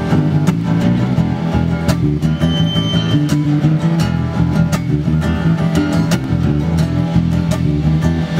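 Band rehearsing during a sound check: guitar-led music with a steady beat.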